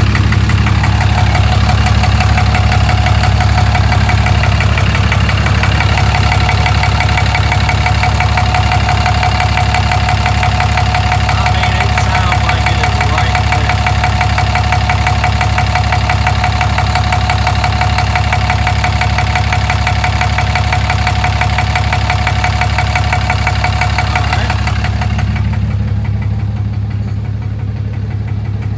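6.7-litre Cummins inline-six turbo-diesel idling with a knock under the load of the AC compressor. A local dealer tech suggested a fuel knock, such as a hung-up injector, while the owner thinks it sounds like it comes from the bell housing. A steady whine runs alongside and drops away near the end.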